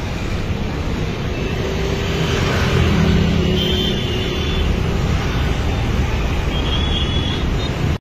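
Steady rumble of road traffic, with two brief faint high-pitched sounds, one about halfway through and one near the end.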